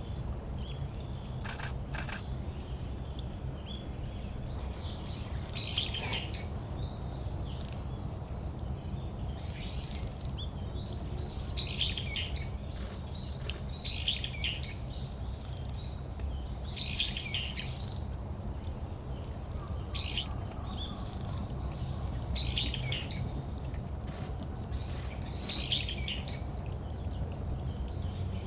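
Short bursts of high calls from a small wild songbird, repeated every two to three seconds. They sit over a steady high insect trill and a low outdoor rumble.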